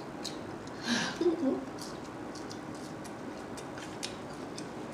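Lip smacks and wet mouth clicks from eating, scattered through, with a brief hummed murmur about a second in.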